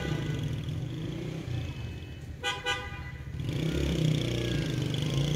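A vehicle horn beeps twice in quick succession about halfway through, over a steady low engine rumble of street traffic.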